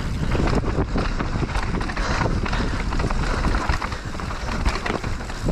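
Mountain bike running fast down a dirt singletrack, its tyres rolling over the dirt and the bike rattling with many short clicks and knocks over the bumps, under steady wind rumble on the action camera's microphone.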